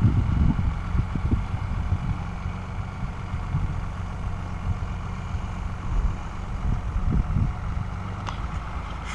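A vehicle engine runs steadily with a low rumble, swelling louder briefly just after the start and again about seven seconds in.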